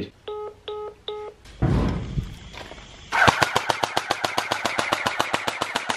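Three short electronic beeps, then about three seconds in a toy gel-blaster rifle opens up on full auto. It fires a rapid, even string of shots, about ten a second.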